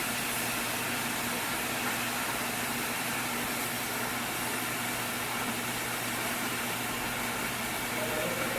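Stick (arc) welding on a steel pipe joint: the electrode arc sizzles steadily, with a low steady hum underneath.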